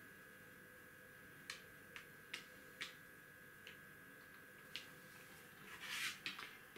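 Wooden backgammon checkers being slid and set down on a wooden board: about six faint, separate clicks. Near the end comes a brief rustle and clatter as a hand sweeps across the board to the dice.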